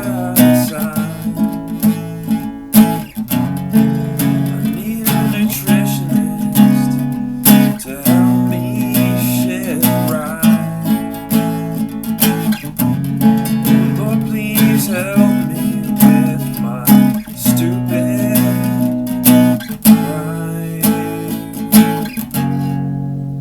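Acoustic guitar music, strummed with a steady rhythm, fading out near the end.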